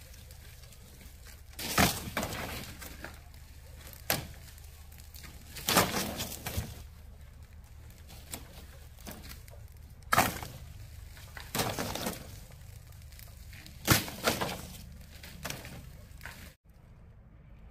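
Green bamboo poles dropped one after another onto a pile on dry bamboo leaves, each landing with a hard clattering knock and a brief crackle of leaves, roughly every two seconds; the sound cuts off abruptly near the end.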